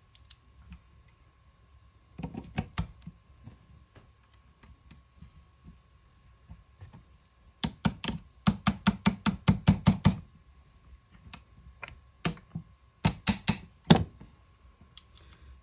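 Sharp metallic clicks and taps from Ruger 10/22 parts being fitted together and pins pushed home during reassembly. They come in three groups: a few taps about two seconds in, a quick run of about six taps a second in the middle, and a few more near the end.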